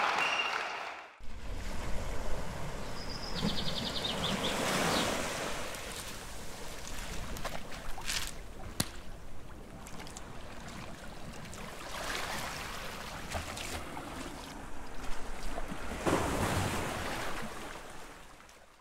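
Ocean surf washing in slow swells, rising and easing a few times, then fading out at the end.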